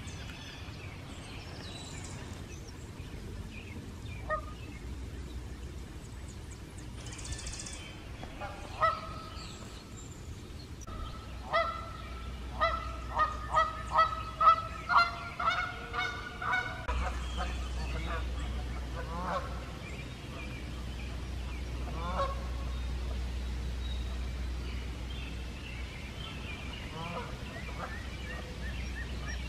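Geese honking: a few single honks, then from about nine seconds in a fast run of repeated honks, roughly two a second, lasting some eight seconds, then more scattered honks.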